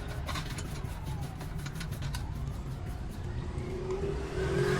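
Motor vehicle engine running with a steady low rumble, then accelerating near the end, its pitch rising as it gets louder. A few sharp clicks sound in the first two seconds.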